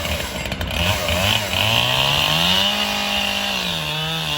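Echo CS-7310P two-stroke chainsaw engine revving up, holding at high revs for about a second, then easing back down.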